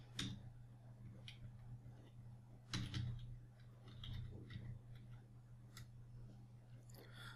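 Faint, scattered computer keyboard keystrokes as a line of code is typed, over a steady low hum.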